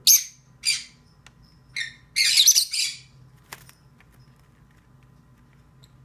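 Peach-faced lovebirds calling: a string of short, shrill, high-pitched calls in the first three seconds, the loudest a quick cluster about two seconds in, followed by a single sharp click and then quiet.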